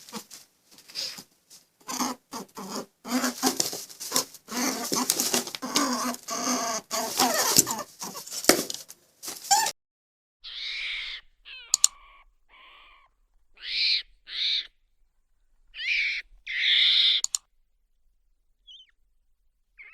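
Animal calls: a dense stretch of overlapping calls, then about a dozen short separate calls, some in quick pairs.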